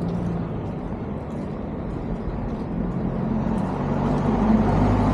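Street traffic: a motor vehicle's engine hum under general road noise, growing louder over the second half.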